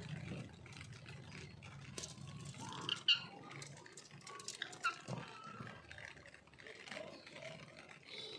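Pet parrot giving short, scattered squawks and chatter, with louder calls about three seconds and five seconds in.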